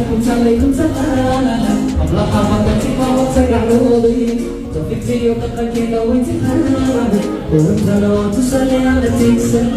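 Loud amplified music with singing, played at a level that was measured at almost 80 decibels.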